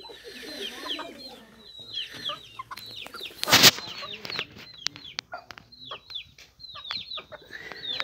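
Aseel chickens clucking as they peck at grain, with many short, high chirps that fall in pitch. A brief loud burst of noise about three and a half seconds in.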